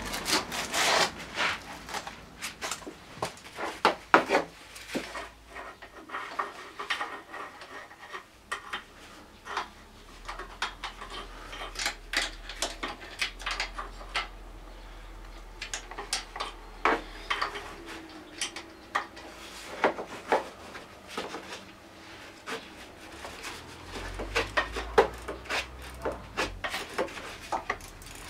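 Hand work on scooter engine parts: irregular clicks, knocks and scraping of tools and metal parts being handled, with no engine running.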